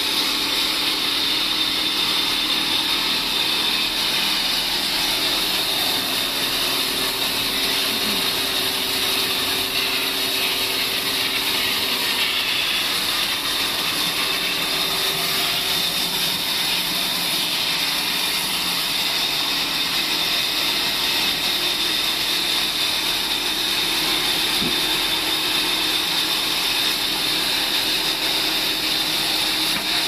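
Table band sawmill running and ripping lengthwise through a log, its vertical blade cutting the wood; a steady, even sound with a constant high tone.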